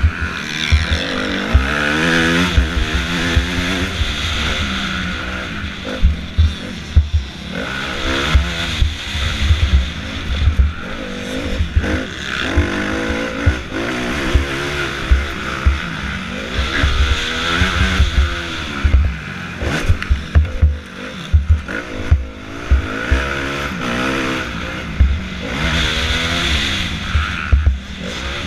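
Motocross bike engine heard from on board, revving up through the gears and dropping off again again and again as the rider works the throttle around the dirt track. Wind rushes over the camera microphone, and sharp knocks come through often as the bike hits bumps.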